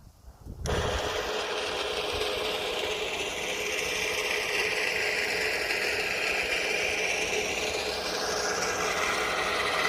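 A motor running steadily. It cuts in abruptly just under a second in and holds an even pitch.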